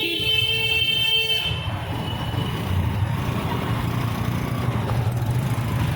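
A vehicle horn sounds steadily and cuts off about a second and a half in. Then only the low, steady rumble of engines and road noise in traffic.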